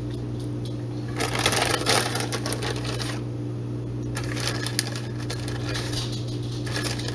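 Plastic bag of pepperoni crinkling as it is handled, in two spells: from about a second in until about three seconds, then again from about four seconds until near the end. A steady low hum runs underneath.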